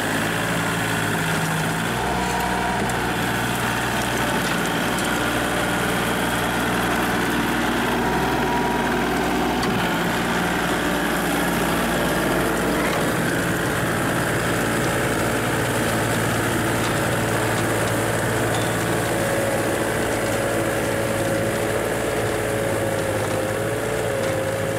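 Small Kubota diesel tractor engine running steadily while it drives a rotary tiller through the soil, its note shifting to a new pitch a few times.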